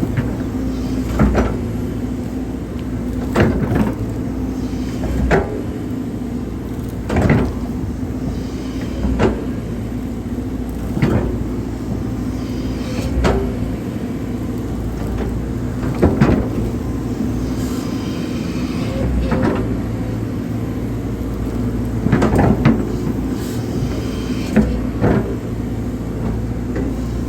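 Hydraulic excavator's diesel engine running steadily under load while it digs a drainage ditch, with a sharp knock every couple of seconds from the bucket and arm working.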